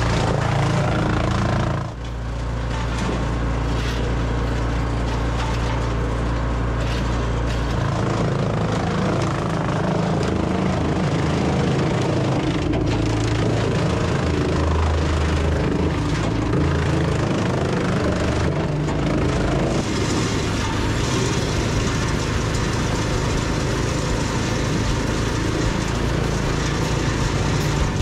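Large wood chipper's engine running under load while it pulls in and chips oak limbs, the engine note dipping about two seconds in and shifting a few times as wood passes through.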